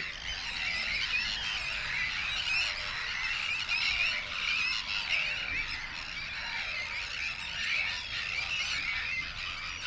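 A dense, unbroken chorus of many birds calling at once, a mass of overlapping squawking and chattering calls.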